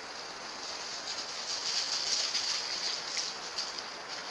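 Outdoor ambience of a steady high-pitched insect buzz that swells louder in the middle, with light rustling.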